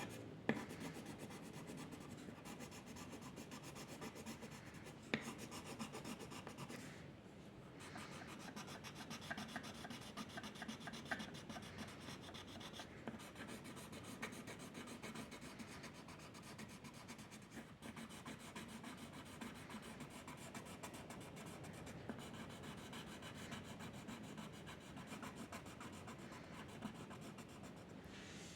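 A drawing tool rubbing and scratching across paper in continuous strokes, with a couple of sharp taps.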